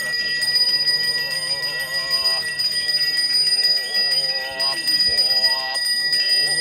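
A Balinese priest's hand bell (genta) ringing steadily without a break, under a voice chanting prayers in long, wavering notes.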